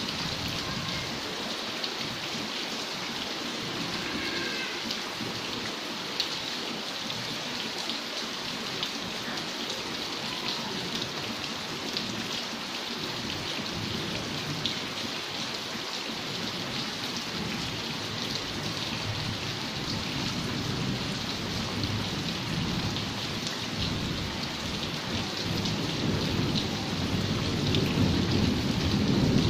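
Heavy rain falling steadily, with many close drops ticking, as on glass window louvres. A low rumble of thunder swells over the last several seconds and grows louder toward the end.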